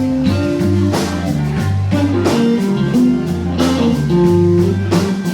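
Blues band playing the slow instrumental introduction of a song, guitar to the fore over held bass notes and regular drum hits.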